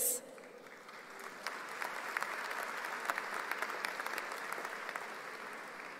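A large audience applauding. It builds over the first couple of seconds, then slowly dies away.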